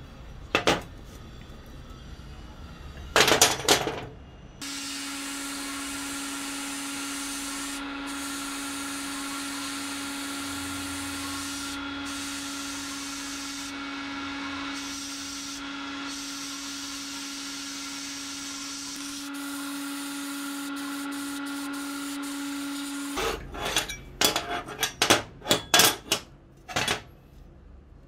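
Sandblast cabinet in use: the blast gun hisses steadily for most of the time over a steady low hum, breaking off briefly a few times, as rust is blasted off steel brackets. A few knocks of metal parts being handled come near the start, and a quick run of clattering knocks near the end.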